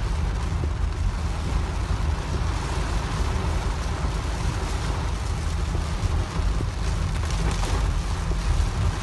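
Heavy downburst rain on a moving car's roof and windscreen, heard from inside the cabin as a dense, steady hiss over a deep rumble of tyre and wind noise.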